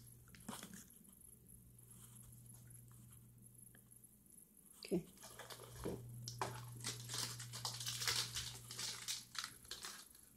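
Plastic snack wrappers crinkling and rustling, with scattered clicks and knocks, as snacks are handled and rummaged in a cardboard box. It is sparse at first and becomes busy from about halfway through, over a steady low hum.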